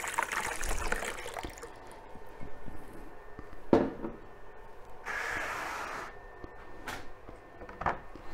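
Water poured from a glass jug splashing over a rubber-covered lens into a plastic basin, simulated rain that stops about a second and a half in. Dripping and handling follow, with one sharp knock of the glass jug set down on the table a little before the middle, about a second of hiss later, and two smaller knocks near the end.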